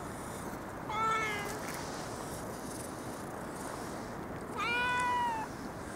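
A cat meowing twice: a short meow about a second in, then a longer drawn-out meow that rises and falls in pitch near the end.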